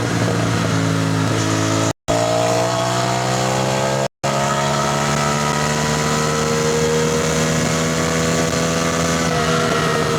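CFMoto 450NK's parallel-twin engine pulling under acceleration while riding, its pitch climbing steadily for a few seconds and then holding at a steady cruise, easing off slightly near the end. The sound cuts out completely twice for an instant early on.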